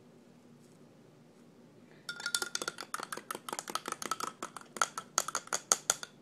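Metal spoon stirred fast in a glass of soapy water, clinking rapidly against the glass, which rings with each hit. The clinking starts about two seconds in and keeps on, several strikes a second, until near the end.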